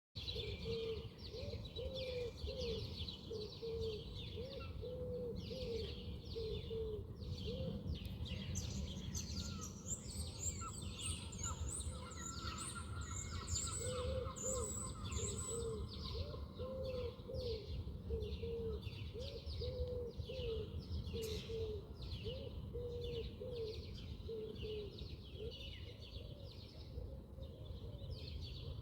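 Birds chirping and calling together, many quick high chirps over a low call repeated several times a second in two spells, with a steady low rumble beneath.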